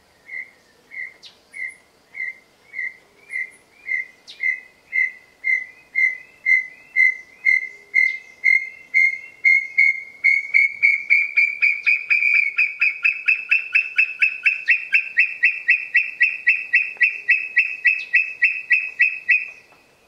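Tinamou call: a long series of pure whistled notes, starting at about two a second and steadily speeding up into a rapid run, rising slightly in pitch over the second half before it stops.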